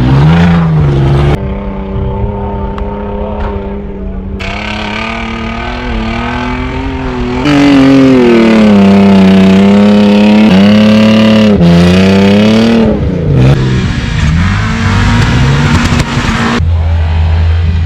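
Off-road vehicle engine revving under changing throttle, its pitch rising and falling repeatedly, loudest in the middle. It settles to a steady low drone near the end.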